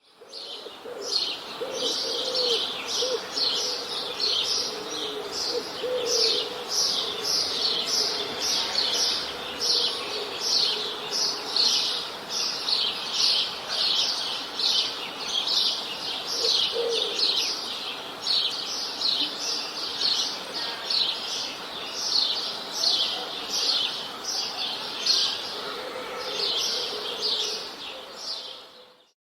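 Small songbirds chirping steadily, short high downward-sweeping chirps about two a second, with a few lower notes now and then. The chirping fades out at the very end.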